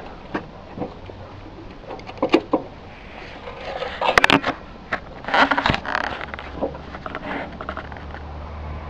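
Roof tiles being handled and set in place: irregular clinks, knocks and scrapes of tile against tile and batten, busiest about halfway through.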